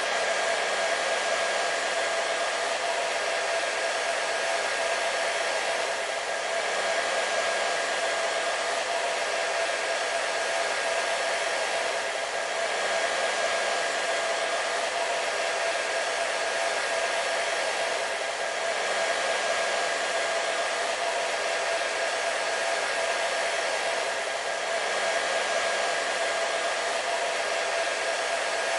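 Hair dryer running continuously: a steady airy rush with a steady motor whine through it, swelling and easing slightly about every six seconds.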